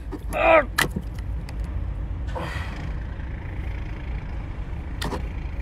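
A big cooked crab claw being pulled apart by hand: a short strained grunt, a sharp crack just after, and another snap of shell near the end, over a steady low rumble.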